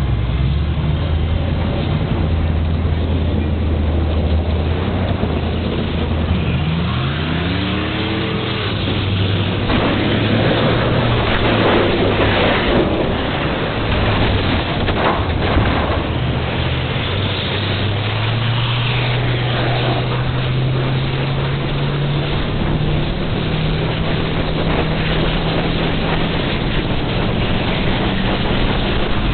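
Enduro race car's engine running hard, heard close from the hood, with a stretch of loud rushing, scraping-like noise in the middle. Over the last third the engine's pitch climbs slowly and steadily as the car gathers speed.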